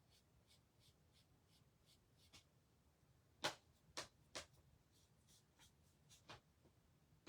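Quiet scratchy strokes of colouring on a small craft cutout, about two or three a second, with a few louder sharp taps in the middle, over a faint low hum.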